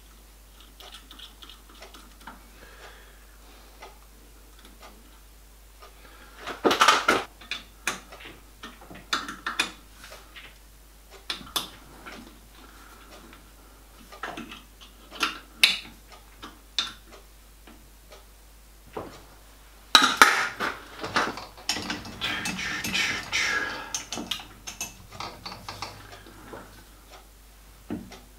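Small steel parts clinking and scraping: washers and nuts being fitted onto the bolts of a steel fixture in a lathe chuck and tightened with a spanner. There is a louder clatter about a quarter of the way in, and a longer busy run of clinks for a few seconds about two-thirds through.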